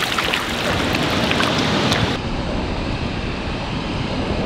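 Steady rush of fast-moving river water below a dam spillway, with wind on the microphone. In the first two seconds a released freshwater drum splashes off through the shallows.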